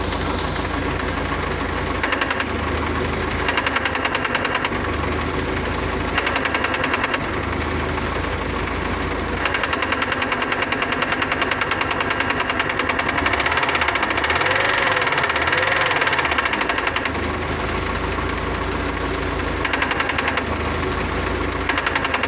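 MTZ-50 tractor's four-cylinder diesel engine running with a steady, rhythmic knock whose cause the owner cannot identify.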